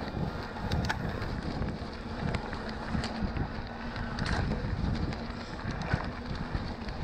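Wind buffeting the microphone over the rumble and rattle of an e-mountain bike rolling over a rough trail, with scattered sharp clicks and knocks from the bike and the ground.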